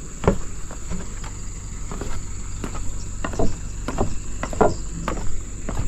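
Footsteps going down a set of wooden stairs: a string of irregular thuds on the wooden treads, roughly one or two a second.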